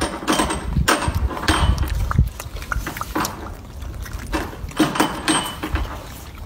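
Golden snub-nosed monkey eating a juicy dekopon (ugly orange) up close: wet chewing, smacking and crackling in short bursts.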